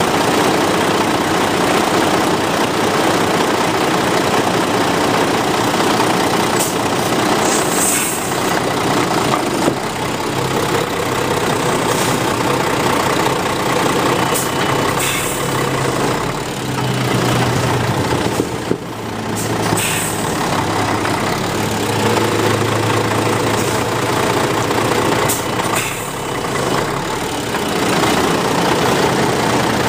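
MAN truck's diesel engine running steadily at low revs as the heavy truck rolls slowly over a small steel pot, with a few sharp knocks as the pot is crushed flat under the tyres.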